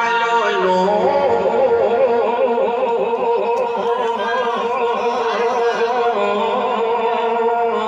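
A man's voice singing a naat through a public-address system, drawing out long, wavering notes with a steady low tone underneath.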